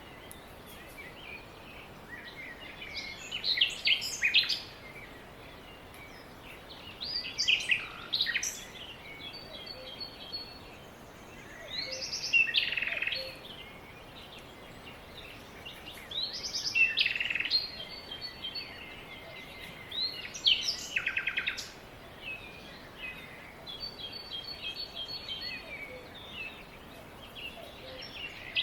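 Songbird singing loud phrases of quick chirps and trills about every four seconds, with softer runs of repeated high notes between the phrases over a faint steady hiss.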